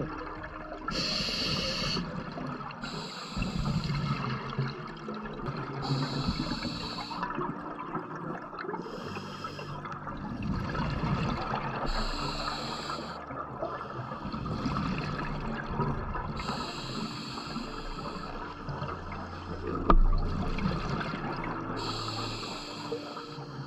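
A scuba diver breathing underwater through a regulator. There are seven inhales, each a hiss of about a second, roughly every three seconds, and between them comes the low gurgling rumble of exhaled bubbles. A single sharp knock is heard about 20 seconds in.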